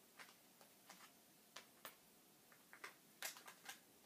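Faint, scattered clicks and taps of small plastic toy parts being handled and fitted together, a cluster of them a little past three seconds in.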